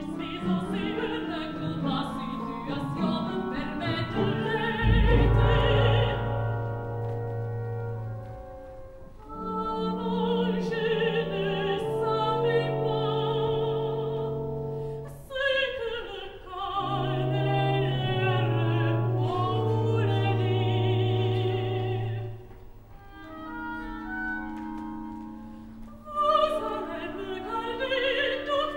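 A woman's operatic voice singing phrases with wide vibrato over an orchestra, which holds low sustained notes beneath her; the voice breaks off briefly a few times between phrases.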